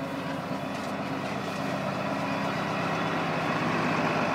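Valtra Valmet tractor's diesel engine running steadily as it drives a blueberry harvester, mixed with the harvester's machinery noise, growing gradually louder.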